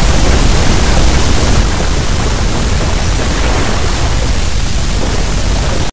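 Loud rushing noise, a hiss across all pitches over a deep rumble, easing slightly about a second and a half in, then cutting off abruptly.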